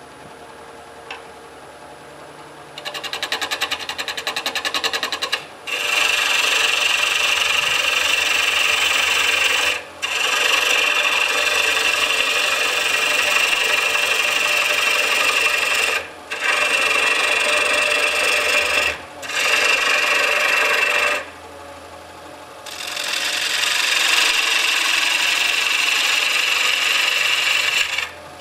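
Bowl gouge cutting the inside of a wooden bowl spinning on a lathe: a loud, hissing scrape of wood peeling away in long shavings. It starts about three seconds in, runs in long passes with several brief breaks and one longer pause about three-quarters through, then resumes.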